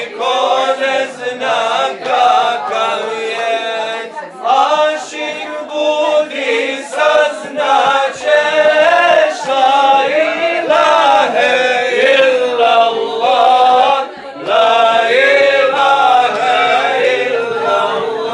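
A group of men singing together unaccompanied, a chant-like melody sung in unison, with one short break for breath about three-quarters of the way through.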